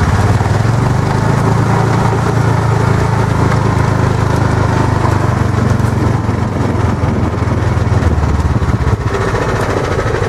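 Club Car golf cart's swapped-in single-cylinder Honda GX engine, its governor bypassed, running steadily under load as the cart drives, then easing off about eight seconds in.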